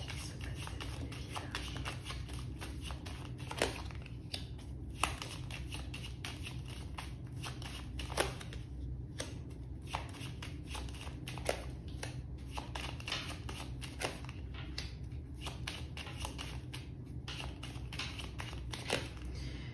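A short deck of playing cards being shuffled by hand as a steady patter of soft card clicks, with cards dealt one at a time onto a cloth mat. A few louder snaps stand out along the way.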